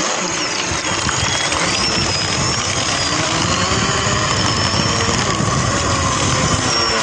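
Motors of a homemade wooden remote-control long-tail boat running at speed, heard from a camera on board: a high whine that rises and falls over the steady rush of water spray.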